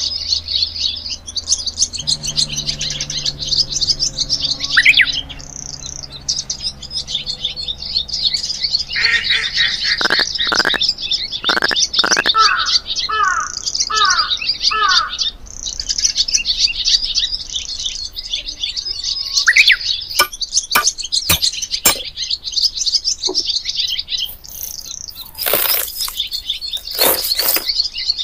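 Small birds chirping busily and continuously in high twitters, with repeated short falling calls mixed in. A few sharp knocks and clatters come in the last several seconds.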